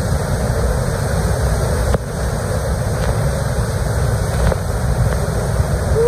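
Waterfall plunging into its pool at close range: a loud, steady rush of falling water.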